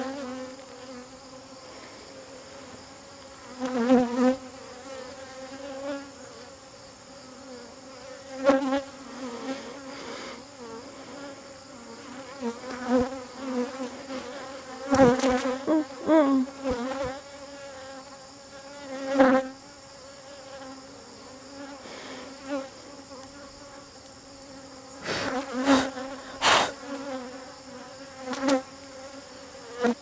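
Honeybees buzzing around an open top-bar hive: a steady hum that swells now and then as bees fly close. A few sharp clicks and knocks cut through, the loudest cluster near the end.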